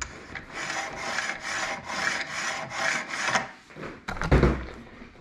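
Base clamps of a Tomcat MT-400 tennis stringing machine slid back and forth along their base, a scraping rub in rapid repeated strokes, then a single knock about four seconds in.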